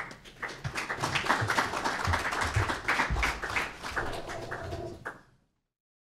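Audience applauding, a dense patter of many hands clapping that cuts off abruptly about five seconds in.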